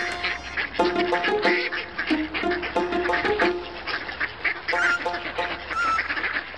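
Background music with a melody of steady notes, overlaid with duck quacking sounds, several short quacks near the end.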